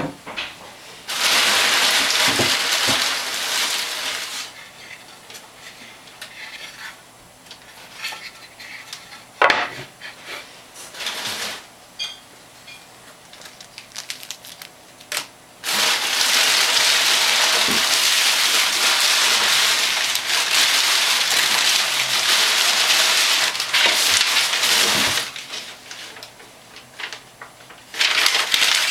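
Packaging being handled and unwrapped, with long stretches of loud rustling and crinkling. Small clicks and knocks fall between them.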